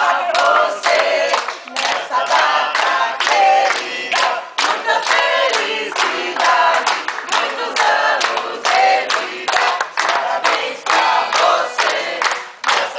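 A group of people singing together and clapping along in a steady beat, about two to three claps a second.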